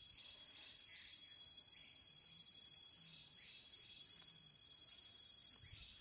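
Insects droning steadily at one high pitch in tropical vegetation, with a few faint short bird chirps over the top.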